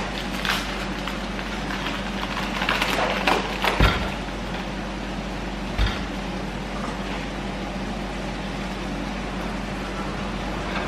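Paper bag of Maseca instant corn flour being torn open and crinkled, then two dull thumps about four and six seconds in, over a steady low hum.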